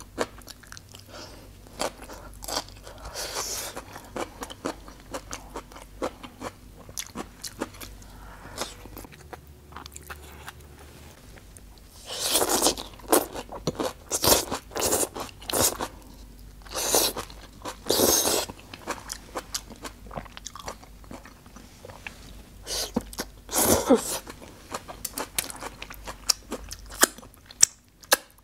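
Close-miked chewing and crunching of grilled skewered vegetables (roasted cauliflower, then grilled leafy greens), with many small mouth clicks and several louder bites and mouth noises in the second half.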